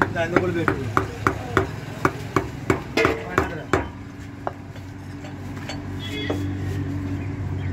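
A butcher's heavy cleaver chopping mutton (goat meat) on a wooden log block: sharp, even chops about three a second that thin out and stop about four seconds in. A steady low hum continues underneath.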